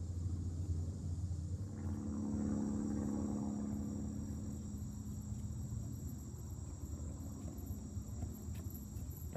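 Insects buzzing steadily in summer woodland, over a low steady rumble. A distant engine drone swells about two seconds in and slowly fades.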